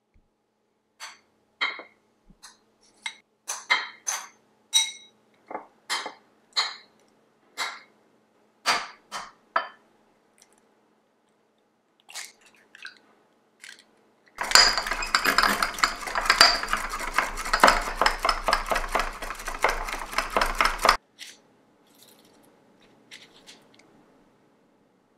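A utensil clinks against a glass bowl in a dozen or so separate strikes as diced corn and luncheon meat are mixed. After a few faint taps from an egg being cracked, an egg is beaten in a small ceramic bowl: a fast, steady clatter lasting about six seconds, the loudest part. Faint squeeze-bottle sounds follow as salad dressing is piped onto bread.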